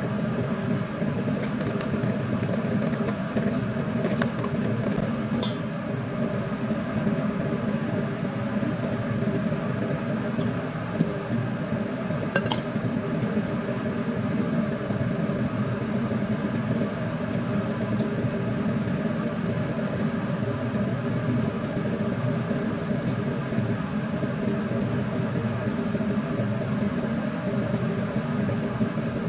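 A steady mechanical drone, even and unbroken, with a few faint light clicks.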